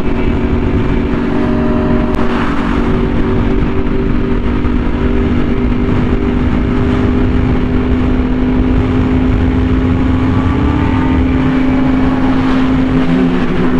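Yamaha R1M's crossplane inline-four, through an SC Project exhaust, running at a steady high rpm at speed, its pitch holding nearly constant and rising slightly near the end, over a heavy low rush of wind.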